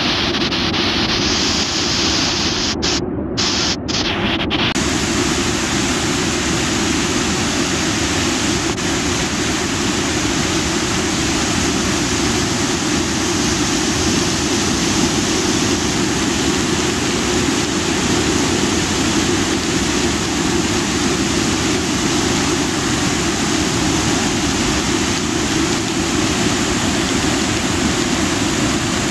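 Steady, loud rush of a river in sudden flash flood, its fast brown water churning white.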